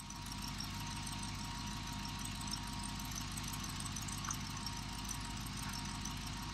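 Truck-mounted crane's engine running steadily at idle while the boom hoists a wooden roof truss.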